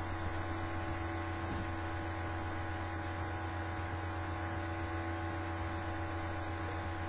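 Steady low electrical hum with a faint even hiss underneath, unchanging throughout: the background noise of the recording setup.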